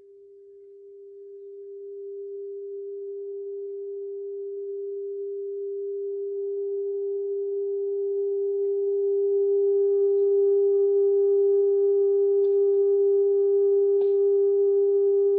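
A single held tone, steady in pitch, swelling from faint to loud over about ten seconds, with higher overtones joining it from about six seconds in.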